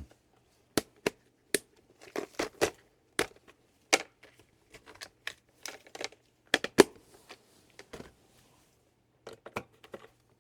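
Irregular sharp clicks and knocks as hand tools and a screwdriver bit work against the plastic housing of an induction cooktop being taken apart, some strokes coming in quick pairs.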